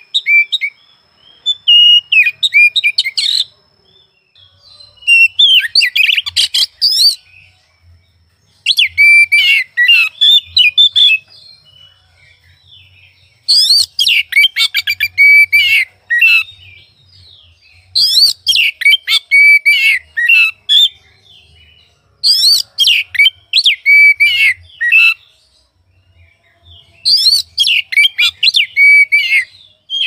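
Oriental magpie-robin singing loud, rapid phrases of varied whistles and chattering notes. The song comes in about seven bursts of two to three seconds each, with short pauses between them.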